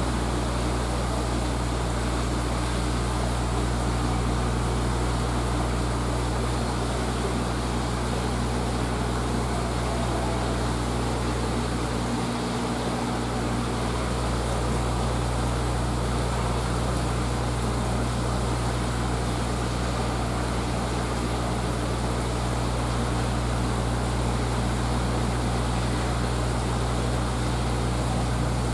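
Steady electric hum with a low even drone and a constant hiss, unchanging throughout, as from the holding tank's pump and aeration equipment running.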